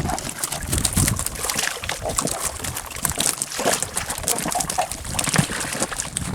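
Water splashing and sloshing, with many small irregular splashes and knocks.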